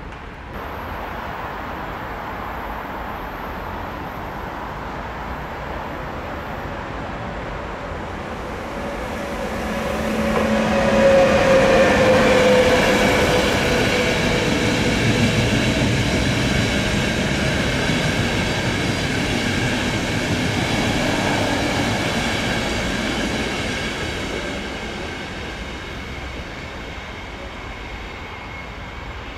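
ÖBB Nightjet train hauled by a red ÖBB electric locomotive passing on the tracks. The rail noise builds over about ten seconds and peaks as the locomotive goes by, with a tone that falls in pitch. The coaches then roll past with a thin, steady high ringing, and the sound fades away over the last few seconds.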